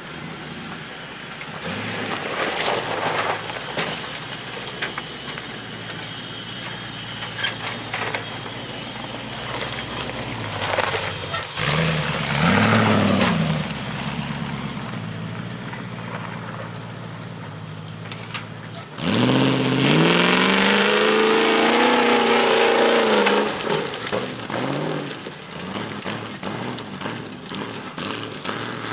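A 4x4's engine working off-road, revving up briefly near the middle. About two-thirds of the way through it suddenly gets much louder for several seconds, its pitch climbing and then falling, as it is driven hard under load.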